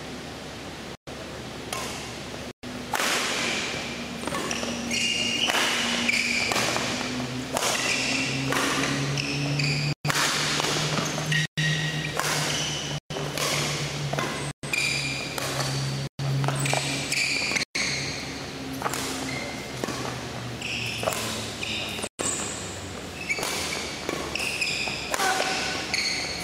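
Badminton footwork drill: court shoes squeak in short, high chirps on the synthetic court mat, between thuds of landing feet and swishes of the racket. A low steady hum runs under the middle stretch.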